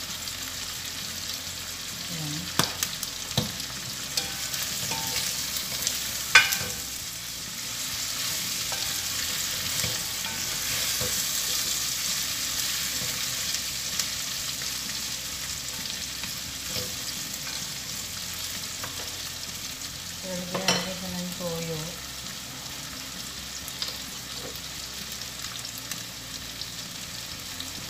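Chicken feet sizzling in a hot pot as they are stirred with a spatula, with a few sharp clacks of the spatula against the pot a few seconds in. The sizzle swells for a while in the middle as the feet are turned over.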